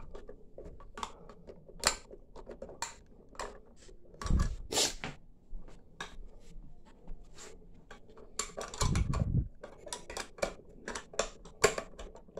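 Small metallic clicks and clacks of SKS rifle parts being handled as the trigger group and fixed box magazine are worked back into the wooden stock, with two heavier rattling knocks about four and nine seconds in.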